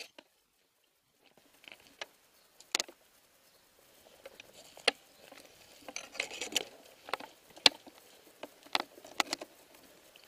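Footsteps crunching and scuffing over rubble, glass and litter, with irregular sharp cracks and clicks about every second or two and a rustle of clothing and gear in between.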